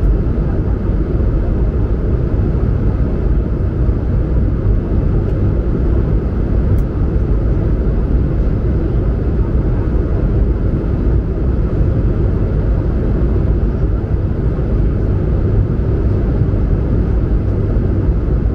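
Steady cabin rumble of an Airbus A220-100 in flight: the drone of its Pratt & Whitney PW1500G geared turbofans and the rush of air past the fuselage, heard from inside the cabin. The sound is even and unchanging.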